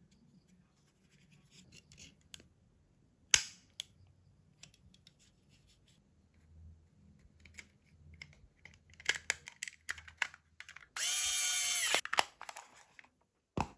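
Plastic clicks and knocks from a Logitech M185 wireless mouse being put back together, its circuit board and shell halves snapped into place, with one sharp click a few seconds in and a run of clicks later. Near the end a scrape lasting about a second as the battery cover slides on, then a last click.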